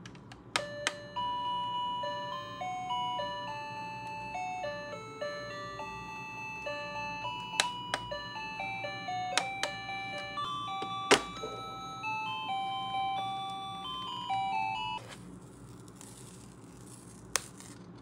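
Toy refrigerator's electronic sound chip playing a beeping melody of single stepped notes after its music-note button is pressed. Plastic button clicks come just before the tune starts and a sharp click near the middle. The tune cuts off suddenly about fifteen seconds in, followed by plastic handling noise and one more click.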